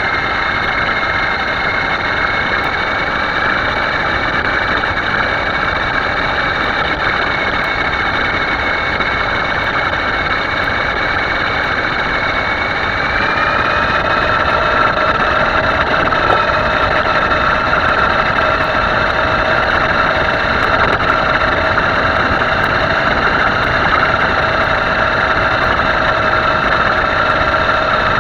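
A motor running steadily, with a whine over a noisy hum; about 13 seconds in the whine steps slightly higher in pitch and the sound grows a little louder.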